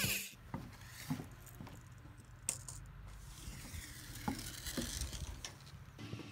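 Quiet outdoor background with a few faint, irregularly spaced light knocks and clicks.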